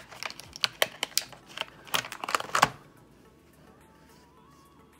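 A quick run of clicks and taps from a kit of gel polish bottles and its packaging being handled, stopping under three seconds in. Faint background music follows.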